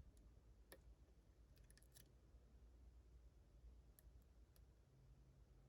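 Near silence with a faint low hum, broken by a few faint clicks of a lock pick and tension tool working the pins of a Ruko 600 lock cylinder, including a short cluster of clicks about one and a half to two seconds in.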